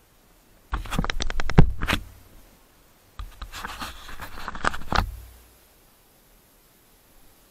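Clear plastic bag crinkling as it is handled close to the microphone, in two bursts: one about a second in and a longer one from about three to five seconds in.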